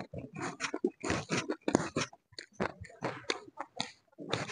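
Close-miked chewing of a chicken-filled steamed taipo bun: a quick, irregular run of short mouth noises, several a second.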